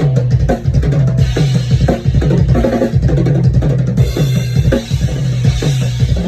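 Drum kit played freely during a sound check: quick strokes on snare and bass drum with low drums ringing, and a bright cymbal wash joining about four seconds in.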